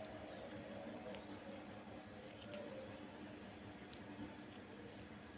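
Quiet room with a faint steady hum and a few small, scattered clicks.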